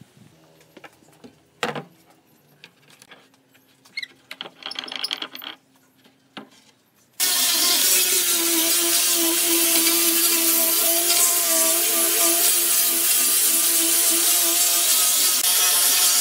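A few faint knocks of wood being handled, then about seven seconds in an angle grinder with a sanding disc cuts in loud and steady, with a fixed whine, sanding wooden boards.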